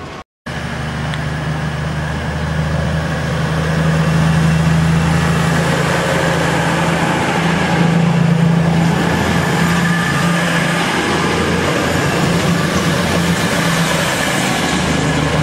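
East Midlands Trains Class 222 Meridian diesel multiple unit passing close by at speed: the steady low drone of its underfloor diesel engines over the rush of the train, growing louder over the first few seconds and then holding. It begins after a brief dropout to silence at the cut.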